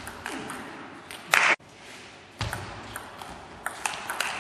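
Celluloid table tennis ball being struck by rackets and bouncing on the table in a rally: a string of sharp, irregular clicks. A brief loud burst of noise about a second and a half in cuts off abruptly.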